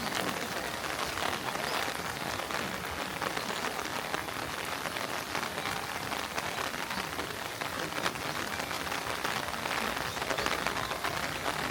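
Steady rain falling, a dense even hiss of many small drop hits.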